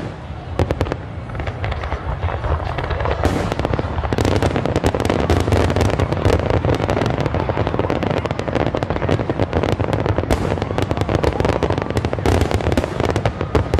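Aerial fireworks shells bursting in quick succession: a dense barrage of bangs and booms that thickens into an almost unbroken volley about three seconds in.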